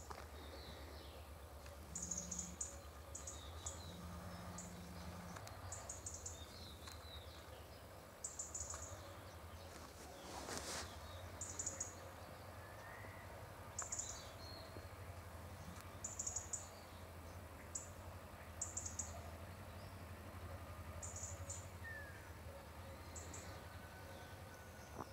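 Riverside ambience: short, high-pitched chirps of small birds repeating every second or two, over a low, steady rumble. A brief rustle comes about ten seconds in.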